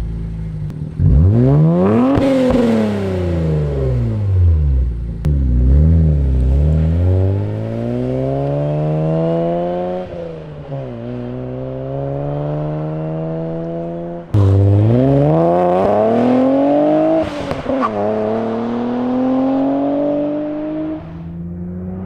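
A 2023 Nissan Z's twin-turbo 3.0-litre V6 through a Z1 Touring cat-back exhaust. It is first revved to medium revs twice at a standstill, the note rising and falling each time. Then it accelerates away gently, the pitch climbing in each gear and dropping at the upshifts.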